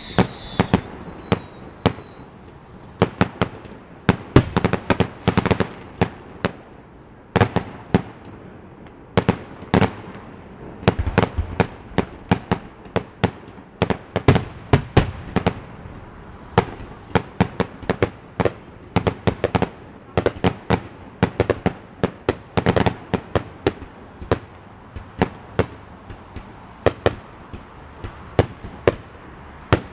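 Aerial fireworks display: shells and salutes bursting in a rapid, irregular string of sharp pops, often several a second. Heard from a few hundred yards away, the salutes come through only as small pops. Near the start a high whistle falls in pitch.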